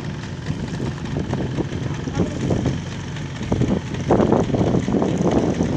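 An engine running steadily, with people's voices talking over it from about two seconds in, louder near the end.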